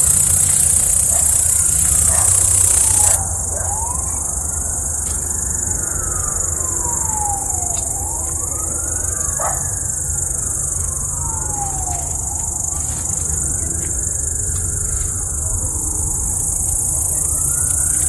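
Siren wailing, its pitch rising and falling in long sweeps about every three to four seconds over a steady low rumble. A high hiss cuts off abruptly about three seconds in.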